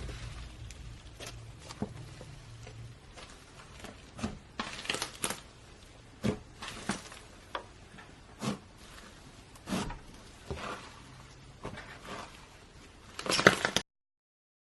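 Slime being pressed and poked by hand, giving irregular sticky clicks and short squishing bursts, with a louder burst of squishes near the end before the sound cuts off suddenly.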